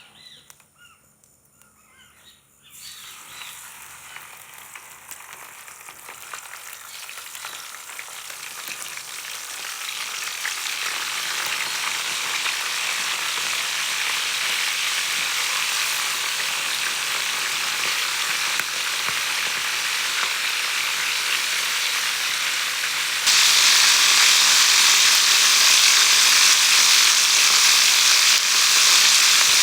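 Fish frying in hot oil: a sizzling hiss that starts about three seconds in, builds over several seconds, then holds steady and jumps louder about two-thirds of the way through.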